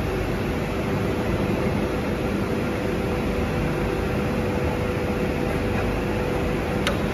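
Steady workshop background hum of machinery or ventilation, with a faint steady tone over it. A single light click near the end.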